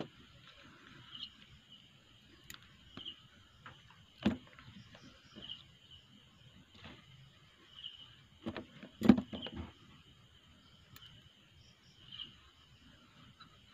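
Scattered small clicks and knocks of a metal pick scraping and prying hardened salt deposits out of a Yupard diving flashlight's head, with a cluster of louder knocks about nine seconds in. A cricket chirps faintly about every second and a half.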